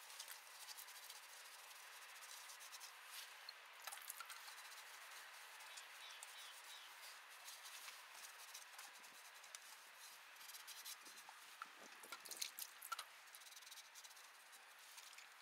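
Faint rubbing and scratching of a sponge scrubbing a plastic chicken water drinker, with small clicks and taps of the plastic.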